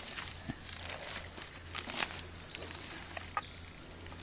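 A dull knife cutting and scraping along a salmon on a wooden board, with scattered clicks and knocks, the sharpest about two seconds in.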